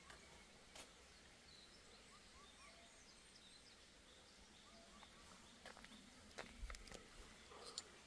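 Near silence: faint outdoor ambience with small, distant bird-like chirps repeating now and then, and a few soft clicks in the second half.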